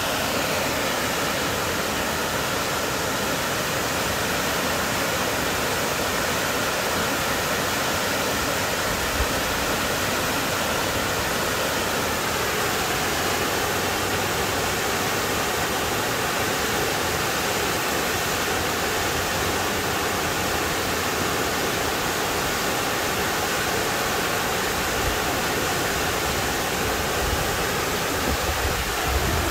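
Tall cascading waterfall, partly encased in ice, pouring down a rock face: a steady, unbroken rushing of falling water.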